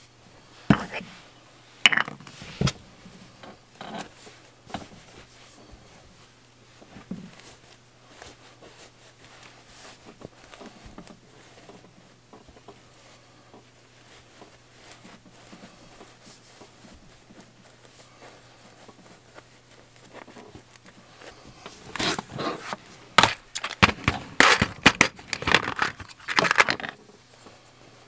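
Polyester fiberfill being pushed by hand into a plush stuffed toy: soft, intermittent rustling and handling noise, with a few sharp clicks in the first seconds and a louder run of crackling and clicking near the end. A faint steady low hum underneath.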